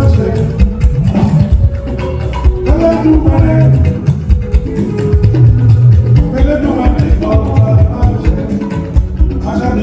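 Jùjú band music: singing over guitars and percussion with a steady beat.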